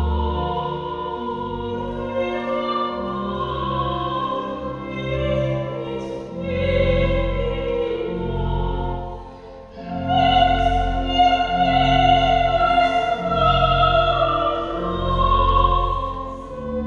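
Pipe organ playing slow, held chords. The sound dips briefly a little past halfway, then returns louder and fuller.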